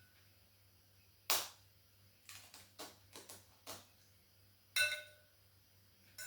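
A series of sharp knocks and clinks of hard kitchenware. The one about a second in is the loudest, a few lighter taps follow, and two clinks near the end ring briefly like metal or glass.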